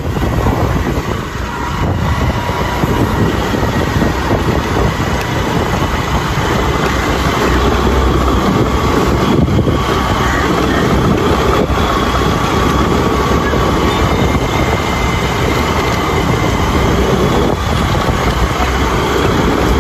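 Motorbike running along a road at a steady speed, its engine and the wind on the microphone making a steady rumble.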